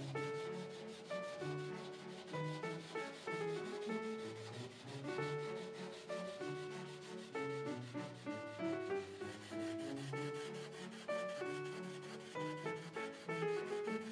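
Steel wool scrubbing back and forth over an old varnished wooden table top, stripping dirt and the top layer of varnish. Background music with a melody of short notes plays throughout.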